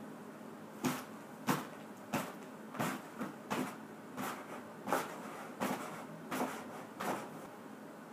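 A person's face bobbing into food on a cloth-covered table in imitation of a feeding flamingo: a run of about eleven short, sharp knocks and scuffs, about one and a half a second.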